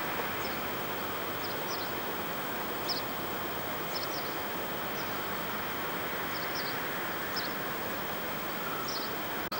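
Small birds chirping, short high chirps repeated irregularly every half second to a second, over a steady background hiss.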